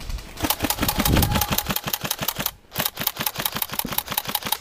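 Airsoft electric rifle firing on full auto: two long bursts of rapid, even shots at roughly ten a second, with a brief pause about two and a half seconds in.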